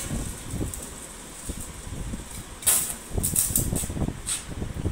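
Stick arc welder striking short tack welds on a metal chair frame: a few brief bursts of arc crackle, starting a little under three seconds in, over low knocks from handling the chair.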